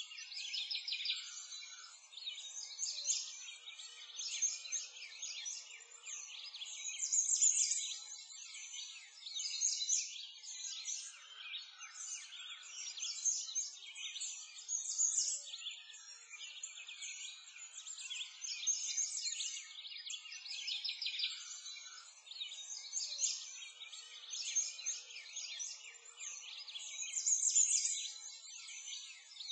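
Many birds chirping and singing together in a continuous chorus of short, high chirps and trills. The chorus swells and fades every few seconds.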